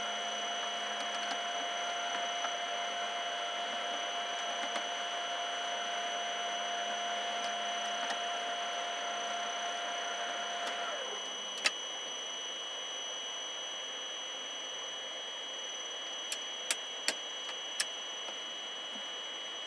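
Biogas plant's feed dosing machinery, which pushes material into the fermenter, running steadily, then winding down with a falling pitch and stopping about eleven seconds in. After it stops come a few sharp clicks while a speaker is fitted to the cab roof: one single click, then four or five close together near the end.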